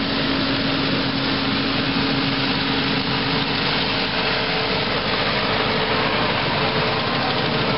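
Perkins diesel engine of a Nuffield tractor running under load, pulling a trailed Dania combine harvester whose threshing machinery runs at the same time. The result is a loud, steady mechanical din, with a faint hum that changes pitch about halfway through as the outfit passes close by.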